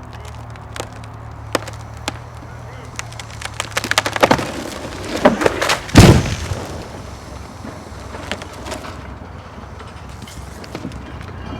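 Wood cracking and splintering in a quickening run of sharp snaps, ending in a heavy crash about six seconds in: a tall, decay-weakened spar tree giving way and falling.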